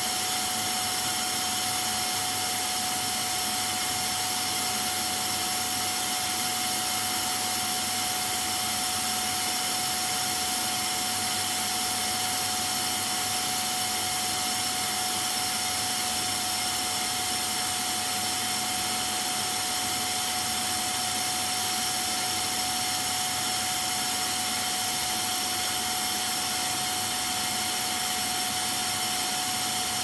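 Electric vacuum cleaner running steadily, an even rushing noise with a constant whine.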